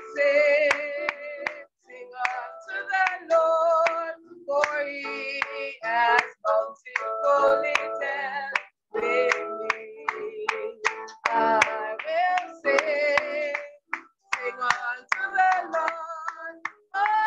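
A woman singing a gospel praise chorus and clapping her hands along in rhythm.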